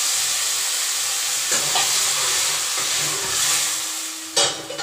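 Chopped tomatoes sizzling and hissing in hot oil in a steel kadhai just after a little water is added, with a steel ladle stirring. The hiss dies down near the end, where a single sharp knock is the loudest sound.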